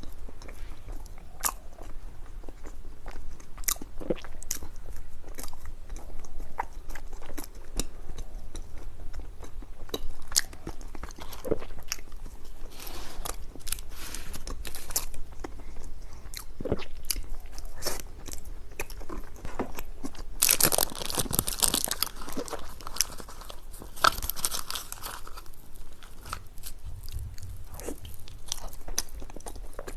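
Close-miked eating of a Chinese dessert: bites and chewing with many short crisp crunching clicks. Two longer stretches of louder crackly noise come about two-thirds of the way in.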